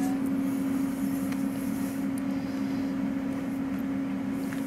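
A steady low-pitched machine hum, one constant tone with a light hiss over it, unchanging throughout.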